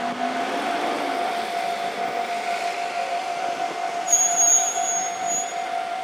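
Japanese level-crossing warning bell ringing in a fast, steady repeat while a KiHa 40-series diesel railcar train runs past over the rails. A brief high-pitched squeal about four seconds in.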